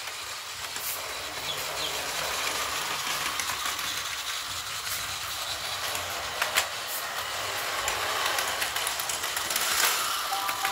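Plarail battery-powered toy train running on plastic track: a steady whirring rattle from its small motor and wheels, with a few sharp clicks.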